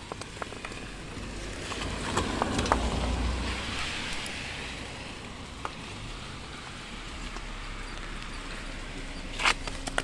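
A car driving past on the road, its engine and tyre noise swelling about two to four seconds in and then fading away. A short sharp knock near the end.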